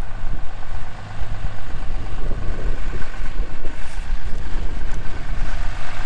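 Ram 2500's Cummins inline-six turbodiesel idling with a steady low hum.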